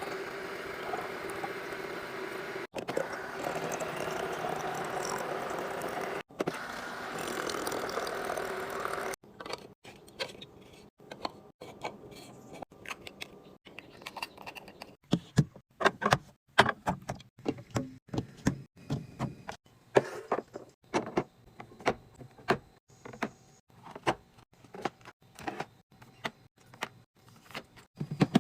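About nine seconds of steady, dense noise, then many irregular clicks and knocks of small objects being handled and set down.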